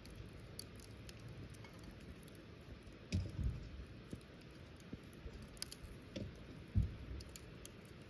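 Wood fire crackling in a small metal fire pit, with scattered sharp snaps and pops. Two dull low thuds, about three seconds in and near seven seconds, are the loudest sounds.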